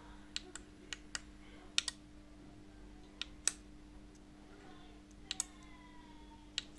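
Sharp clicks, singly and in close pairs, about ten in all at uneven intervals, over a steady low electrical hum. A faint tone glides downward for about a second after the clicks near the end.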